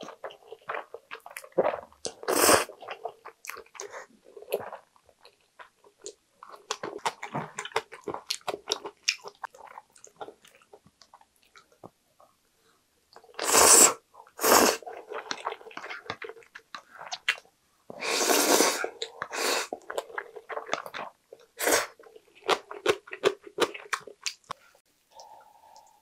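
A person eating jjajang ramen noodles: several loud slurps, the longest lasting about a second, with wet chewing and many small mouth clicks between them. There is a short lull a little before the middle.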